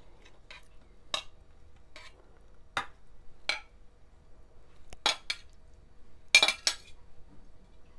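Serving tongs clicking and clinking against a bowl and serving dish while fried potato and carrot strips are lifted out, in scattered short, sharp strokes, the loudest few coming close together near the end.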